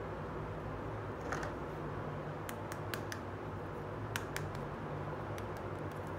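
Small plastic toy pieces clicking and tapping as they are handled and fitted together, about a dozen sharp light clicks scattered through, over a steady low hum.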